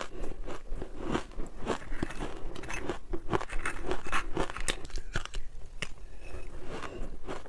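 Freezer frost being bitten and chewed up close: a dense, irregular run of crisp crunches.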